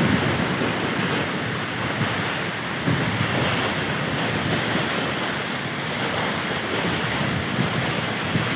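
Steady rushing noise of wind buffeting the microphone over the roar of a waterfall, as heard riding a zipline past the falls.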